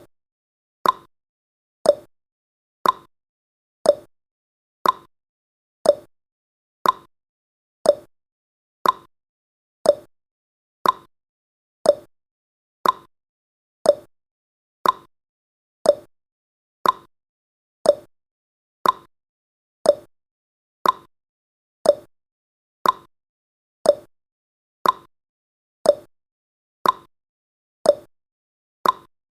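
Countdown timer's clock-tick sound effect: a short sharp tick once every second, evenly spaced, with silence between ticks.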